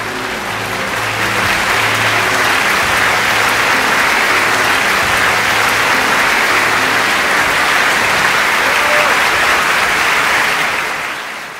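Audience applauding in a concert hall. The applause swells about a second in, holds steady, and fades out near the end, with a few held low orchestral notes dying away under it at first.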